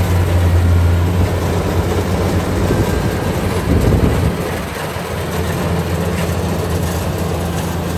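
Kubota combine harvester cutting and threshing ripe rice, its diesel engine running steadily as a strong low hum under a rushing mechanical noise; the hum eases briefly about halfway through.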